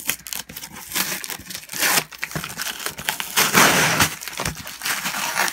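Packing tape being picked at and peeled off a cardboard shipping box: irregular crackling rips and scrapes against the cardboard, with the longest, loudest rip a little past the middle.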